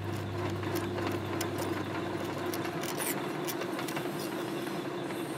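Large Hwacheon metal lathe running with a steady hum, while the hand-fed cutting tool takes an interrupted cut across the face of a metal block in the four-jaw chuck, ticking in a regular rhythm each time it strikes the block as it cuts a spiral knurl.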